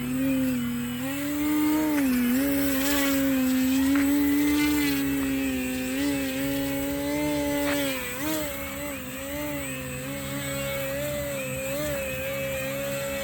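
Vacuum cleaner running with a steady droning hum whose pitch wavers slightly, easing off a little about two-thirds of the way through.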